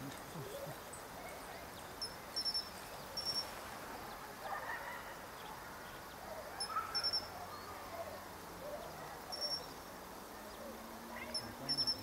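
Common kingfishers calling: short, shrill high-pitched notes, some single and some in quick runs of two or three, repeated several times over a steady background hiss.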